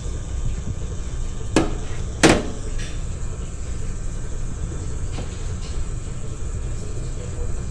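Two sharp metallic knocks about two-thirds of a second apart, the second louder with a short ring, as the emptied tuna can and spatula are knocked against the steel. Faint taps of the spatula follow as it works the tuna in a stainless steel bowl, over a steady low hum.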